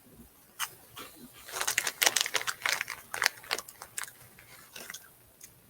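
Crunching and chewing of puffed corn cheese balls: a quick run of crisp crackles that is densest in the middle and thins out toward the end.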